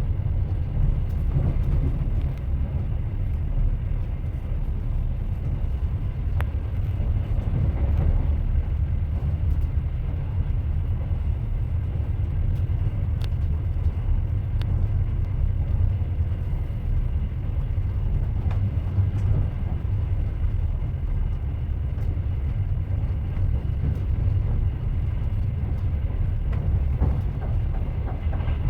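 Moving train running on the rails: a steady low rumble with a few faint clicks.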